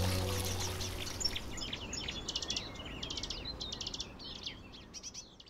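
Small birds chirping in quick repeated trills over the steady splash of a fountain's water jets, all of it fading out near the end.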